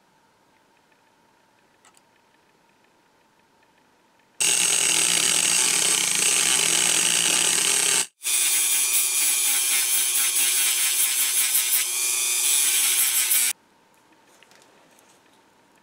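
A rotary tool with a thin cut-off disc cuts into steel. It starts about four seconds in and runs in two loud stretches with a brief break between them, the second with a steady whine. Near the end come faint scratches of a screwdriver tip working against the cast iron.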